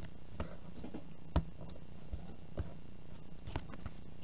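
Scattered light clicks and taps of a trading card in a clear plastic holder being handled and set on the table, the sharpest about a second and a half in, over a steady low hum.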